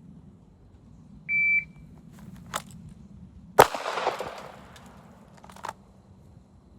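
Shot timer's start beep, a steady high tone lasting about a third of a second, followed about two and a third seconds later by a single Glock pistol shot, drawn and fired with a round already chambered, with a few light clicks between. The shot is the loudest sound and rings on briefly.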